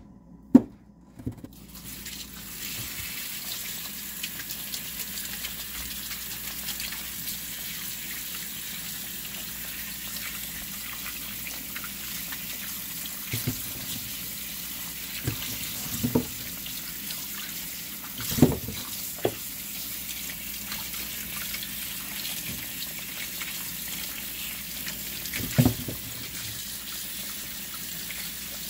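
Kitchen tap running steadily into a stainless steel sink as muddy Jerusalem artichoke tubers are rinsed and rubbed clean by hand under the stream. The water comes on about two seconds in. A few short knocks sound through it, and the loudest comes just before the water starts.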